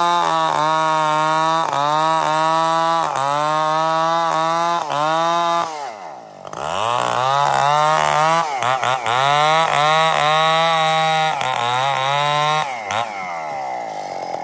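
Two-stroke chainsaw running at high revs while cutting wood, its pitch dipping briefly about once a second as the chain bites. About halfway through the revs drop away, then climb back up for more cutting, and near the end they fall off again.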